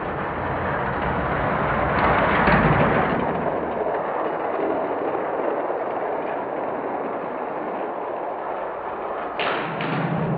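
Die-cast cars rolling at speed down a plastic Hot Wheels track, a steady rolling rumble that swells a couple of seconds in. A few sharp clacks near the end.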